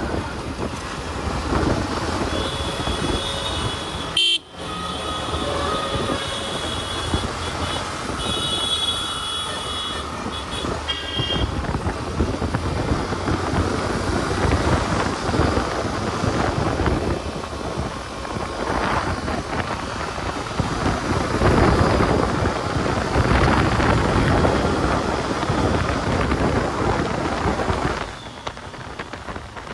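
Road traffic noise with a steady rumble, and vehicle horns honking on and off in the first third.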